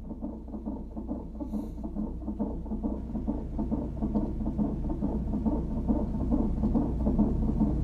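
Instrumental outro of an R&B track: a low sustained drone with a rapid fluttering pulse over it, slowly swelling in loudness.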